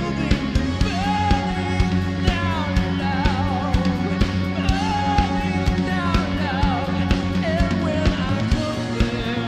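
Live rock band playing: a male lead vocal sings a wavering melody over electric guitar, keyboard and a drum kit keeping a steady beat.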